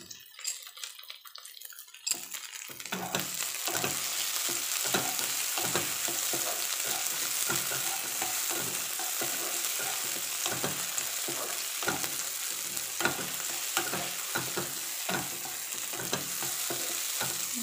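Onion, garlic, green chilli and tomato sizzling in hot oil in a non-stick kadai, stirred with a spatula in repeated scraping strokes. The sizzling comes in about two seconds in, after a few faint clicks.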